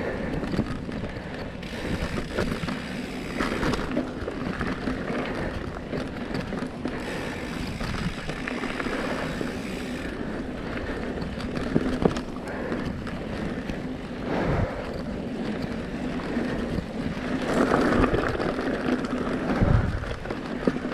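Specialized Stumpjumper Evo mountain bike riding down a dirt singletrack: steady tyre rumble over the ground with wind noise on the microphone, and the bike knocking and rattling over bumps, loudest near the end.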